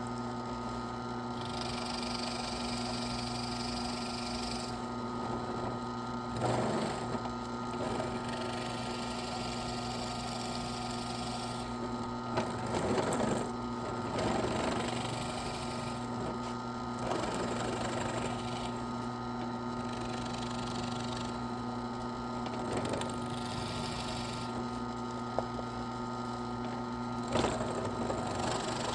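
A small power tool hums steadily as it grinds fatwood pine into sawdust, with a hissing rasp that comes and goes every few seconds as it cuts into the wood. There are a few short louder bursts in between.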